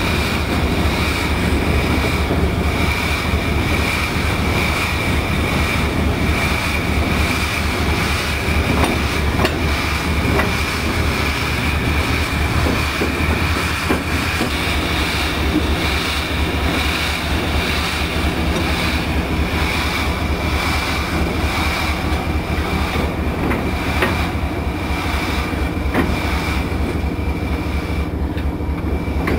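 Steam locomotive rolling along yard track, heard from its front end: a loud, steady rumble of the running gear and wheels with a steady high tone above it and a few light clicks.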